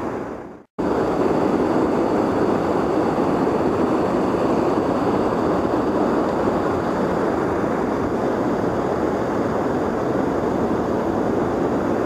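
Steady rush of flowing river current, even and unbroken. It starts abruptly under a second in, after a brief fade to silence.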